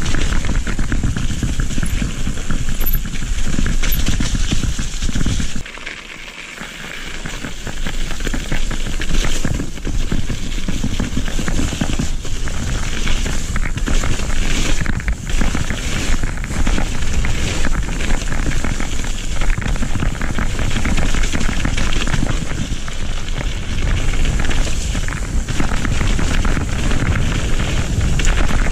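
Mountain bike riding fast down a rough dirt trail: tyres crackling and rattling over the ground and the bike chattering over bumps, with wind buffeting the microphone. The low rumble drops away briefly about six seconds in.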